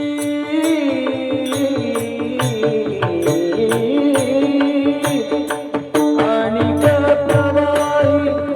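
Kirtan devotional music: a steady held drone with a sliding melody over it, sharp strikes of small hand cymbals about twice a second, and low drum beats.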